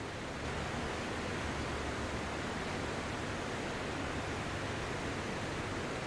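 Sea surf washing onto a sandy beach: a steady, even rushing hiss of breaking and receding waves, a little louder from about half a second in.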